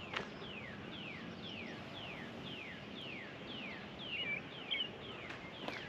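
A songbird singing a regular series of about ten short falling notes, roughly two a second, with a couple of twittering notes near the end.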